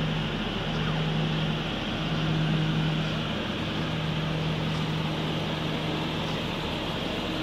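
A 2005 Acura NSX's V6 idling steadily, a low hum under an even hiss.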